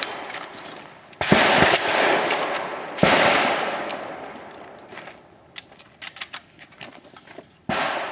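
Shotgun shots fired in a string: two close together about a second in, a third at about three seconds, and a fourth near the end, each with a long echoing tail. Small clicks come between the third and fourth shots.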